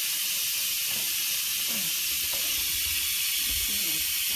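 Instant Pot electric pressure cooker venting steam through its release valve: a steady hiss as the pressure is let out after cooking. The lid stays locked until the venting stops.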